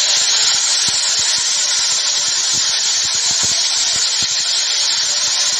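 Floodwater rushing in a fast torrent over rocks: a loud, steady rush of water.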